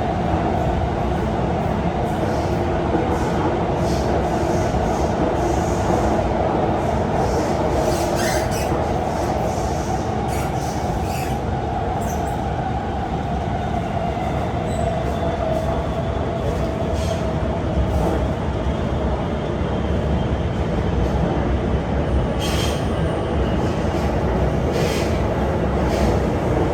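Interior of an Alstom R151 metro train running at speed: a steady rumble of wheels on track, with a whine that drifts slightly lower in pitch over the first half. This is the weird whine from the train. A few brief high squeaks come from the wheels.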